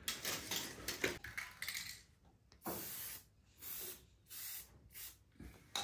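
Spray paint can hissing in about four short bursts in the second half, marking outlet positions on a wall, after a few clicks and rustles.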